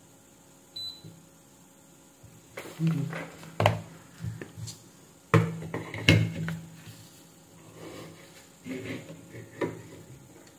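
Handling noise on a workbench: a few sharp knocks and rustles as multimeter test probes are lifted off a circuit board and set down on the meter, with a short high beep about a second in.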